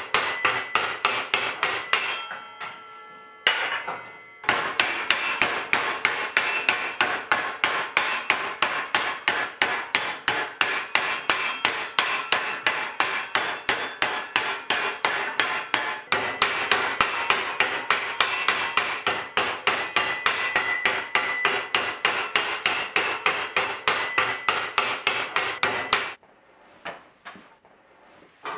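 Hand hammer striking hot 4130 steel plate over a steel stake in quick, steady blows, about four a second, each blow ringing. About two seconds in the blows pause and the ring dies away. Near the end the hammering stops, leaving a few single knocks.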